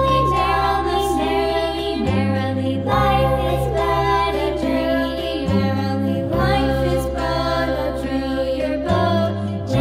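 Background music: a light song with a sung melody over a steady bass line.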